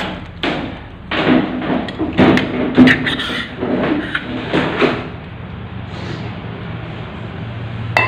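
Irregular knocks and clanks of tools and metal parts being handled while a service valve is fitted to a refrigerator's copper refrigerant line. There are about a dozen strikes in the first five seconds, then a steady low hum.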